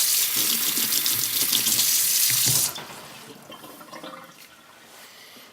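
Tap water running in a loud, even hiss to rinse off the metal swarf from sharpening. It shuts off about two and a half seconds in, leaving faint handling sounds.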